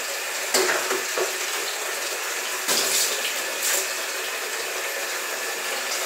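Water running steadily as a kitchen door and tiled floor are washed, with a few brief louder swishes, the first about half a second in and two more around three and four seconds in.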